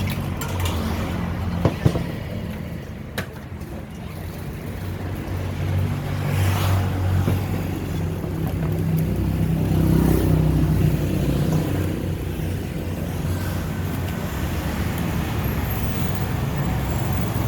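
A motor vehicle's engine running close by, a low hum that grows louder toward the middle and then eases off a little. A few sharp clicks sound about two and three seconds in.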